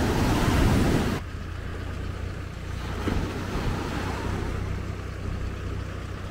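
Sea waves breaking on a sandy beach. A loud wave crash fills the first second and cuts off abruptly, then a steady wash of surf over a low, steady rumble.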